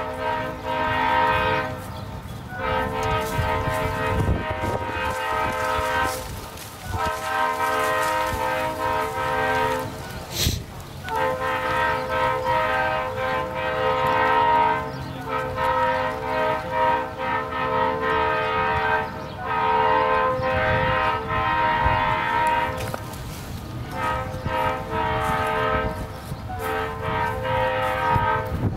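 Diesel locomotive air horns sounding a chord in a long series of blasts, each a few seconds long with short breaks between: a locomotive horn show. A single sharp crack falls in one of the breaks about ten seconds in.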